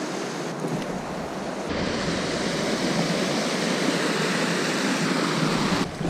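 Water rushing steadily over a small cascade in a rocky stream, growing slightly louder about two seconds in.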